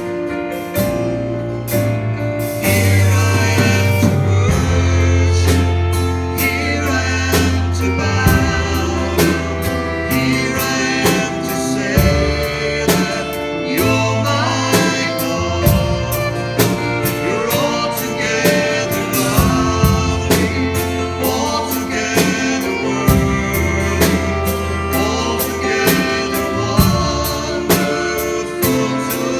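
Worship song: singing over a band with bass and a steady drum beat.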